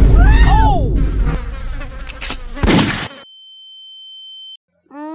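Cartoon sound effect of dishes crashing into a metal sink, a loud crash followed by a few seconds of clattering. A steady high-pitched tone then sounds for about a second and a half and cuts off suddenly.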